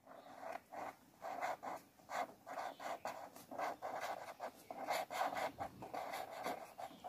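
A pen scratching on paper in quick, uneven short strokes as a word is handwritten.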